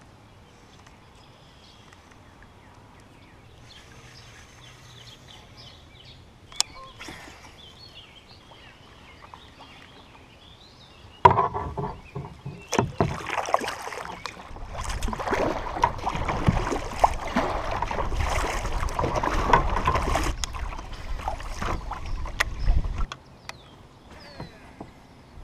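Kayak on the water with paddle and water noise: quiet at first, then a sharp knock about eleven seconds in, followed by several seconds of loud, rough splashing and sloshing with many small clicks before it settles again.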